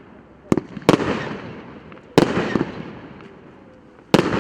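A P8595 'Borodino' fireworks cake firing: four sharp bangs, the first two close together, each followed by a long fading tail.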